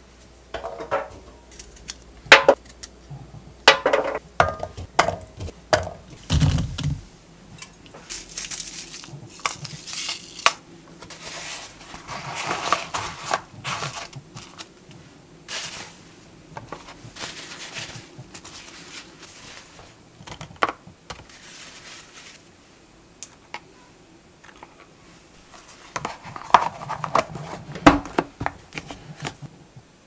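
Intermittent kitchen handling sounds: knocks and clinks of a colander and dishes at the sink, with a dull thump about six seconds in, then rustling of paper towel and a plastic food container being handled as peeled garlic cloves are packed into it, with more knocks near the end.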